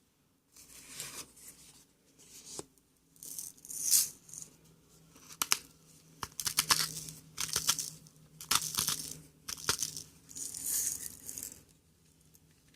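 Hand salt grinder crushing coarse Himalayan salt crystals: a run of gritty crunching bursts with sharp clicks, about one per twist roughly every second, stopping near the end. The grinder is set to grind fine.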